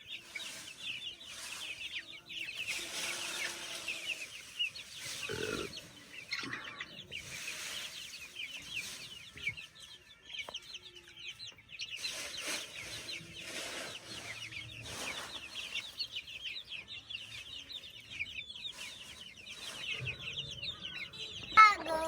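A flock of chickens clucking and chirping continuously, with many short high calls overlapping.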